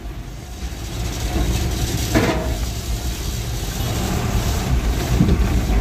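Isuzu Elf truck's diesel engine running in the cab as the truck drives off the ferry down the steel ramp, a low steady rumble that grows louder over the first second or so.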